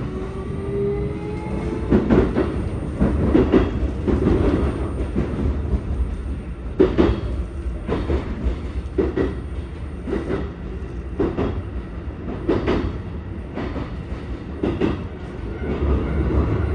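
Running noise inside a Keikyu 1000-series commuter car. A faint rising whine from the Toshiba PMSM traction drive fades out about two seconds in. After that, the wheels click over rail joints at irregular intervals, roughly once a second, over a steady rumble.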